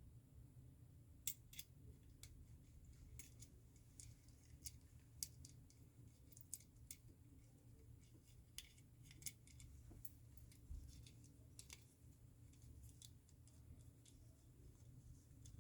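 Faint, irregular small metallic clicks, roughly two a second, from the wafers and parts of a Ford Transit Connect hood lock cylinder being handled and fitted by hand, over a low steady hum.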